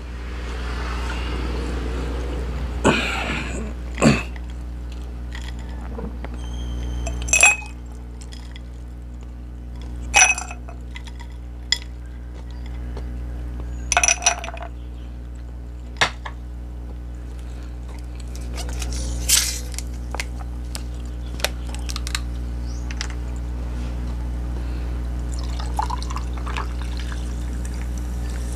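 Ice cubes dropped one by one into a drinking glass, a series of sharp separate clinks, then an orange drink poured over the ice near the end, over a steady low hum.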